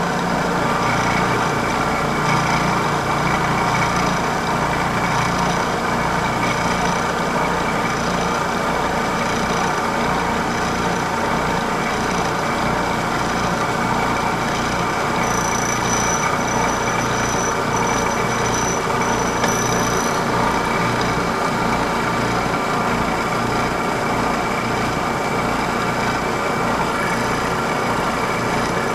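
Vertical milling machine running steadily, its single-edge fly cutter taking a facing cut across a flat brass plate.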